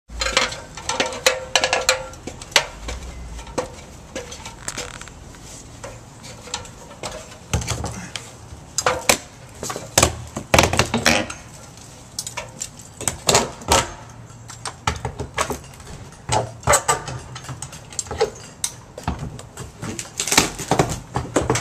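Irregular sharp knocks, taps and clattering from hand work on a house repair job site, with no steady rhythm.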